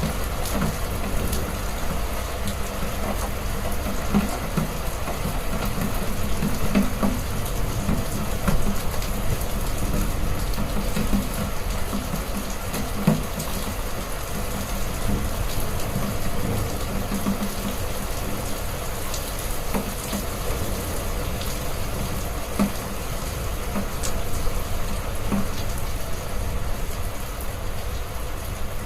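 Heavy rain falling steadily, with scattered sharper drop hits over a constant low rumble.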